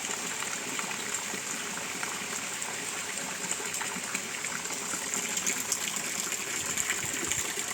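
Heavy rain falling steadily, with water running and trickling.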